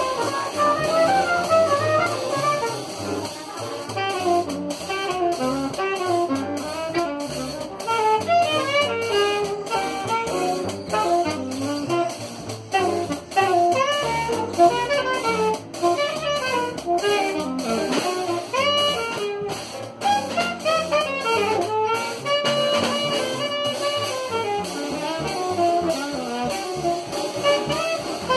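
Small jazz band playing live inside a streetcar: saxophones and trumpet play melody lines over a drum kit and upright bass.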